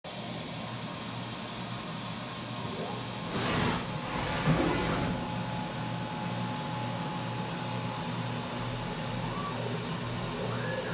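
Steady machine hum of a Maxcut M1100 vertical machining centre, with a short burst of hiss about three seconds in, a sharp knock about a second later, and a faint steady whine from about four to nine seconds in.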